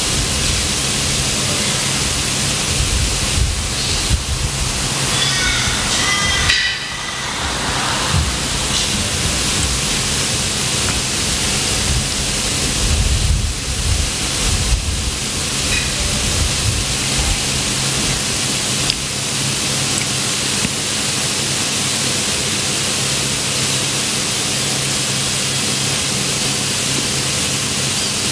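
A steady hiss from the recording's noise floor, with a low electrical hum beneath it. There are a few faint low bumps, and a brief faint disturbance about six to seven seconds in.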